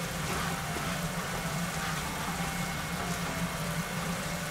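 Grated-onion sauce simmering in a frying pan as it reduces in the meat juices, stirred with a spatula: a steady bubbling hiss over a steady low hum.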